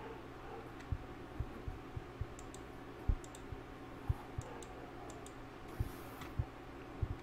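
Irregular soft thumps and light clicks of someone stepping and shuffling on a plastic carbon floor-heating film laid over a trailer floor, as the film is worked loose for removal.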